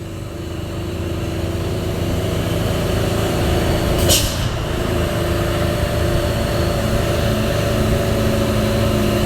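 Hino 500 truck's diesel engine droning under its exhaust brake ('rem jembrit') on a downhill run, building over the first couple of seconds and then holding steady. A short hiss of air about four seconds in, typical of the air brakes.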